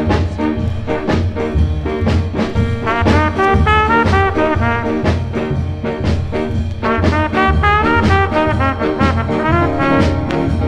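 Instrumental break of a late-1960s reggae record: horns, trombone and trumpet, playing a melody over a steady bass beat, with no singing.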